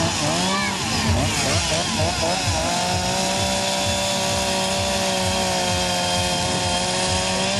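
Petrol chainsaw revving up and down, then held at a steady high pitch from about three seconds in as its bar cuts horizontally into an upright log.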